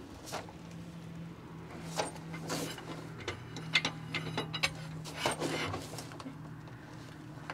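Long-handled wrench and socket working the wheel nuts on a motorhome's steel truck wheel: a string of irregular metallic clicks and short scrapes as the nuts are pulled very tight.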